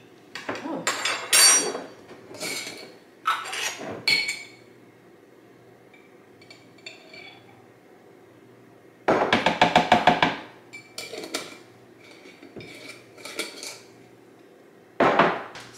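Metal spoon clinking and scraping against a glass jar while sea moss gel is scooped out, in a string of sharp clinks and knocks. About nine seconds in comes a fast rattling run of scraping clicks.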